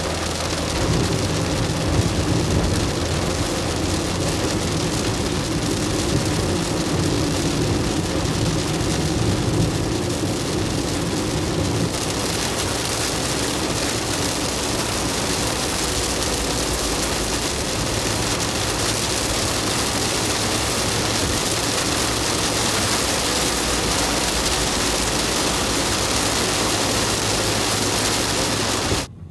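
Toyota Hiace van cabin at highway speed in rain: steady tyre and road noise with a low engine hum and rain on the windscreen. The noise shifts in character about twelve seconds in and cuts off suddenly near the end.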